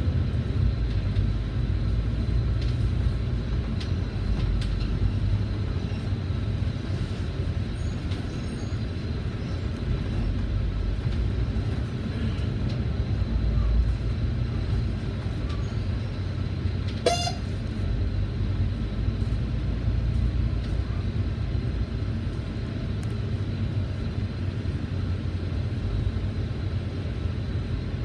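Volvo B9TL double-decker bus's diesel engine and drivetrain running steadily, a low rumble heard from inside the upper deck as the bus drives along. A single brief sharp click or clink cuts through about two-thirds of the way in.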